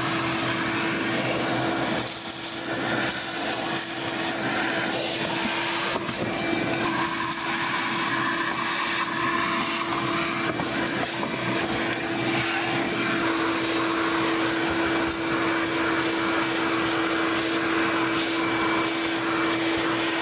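Vacuum cleaner running steadily with a constant hum as its nozzle sucks dry mouse-nest debris out of a car's HVAC housing and evaporator core.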